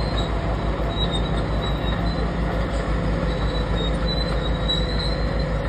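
Lumber-loaded railroad flatcars being pulled along the track by a bulldozer: a steady rolling rumble of steel wheels on rail, with a high wheel squeal that comes and goes.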